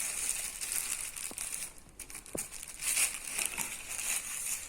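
Packaging crinkling and rustling as a boxed Bluetooth tripod selfie stick is unwrapped and handled, with a few light clicks and a short pause about two seconds in.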